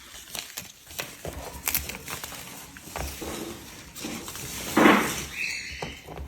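A cockatoo gives one short, harsh screech about five seconds in, amid scattered light clicks and knocks.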